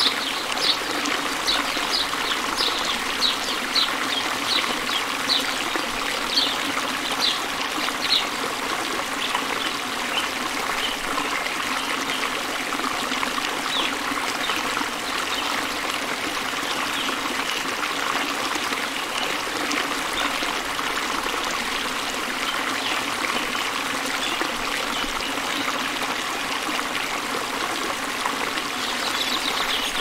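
Steady trickling and flowing water of a stream, with a run of short high ticks, about two a second, over the first several seconds.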